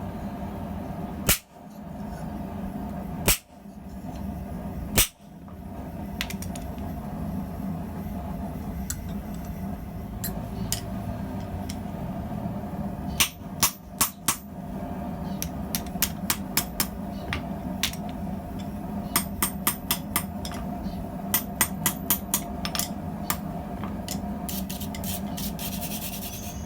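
Hammer blows on steel during forging: a few single heavy strikes in the first five seconds, then runs of quick, lighter taps, several a second, from about halfway through. A steady low hum runs underneath.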